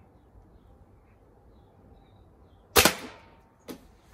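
A single shot from a .22 Hatsan spring-action air rifle about three seconds in, a sharp crack with a short ringing tail. A second, quieter sharp crack follows under a second later.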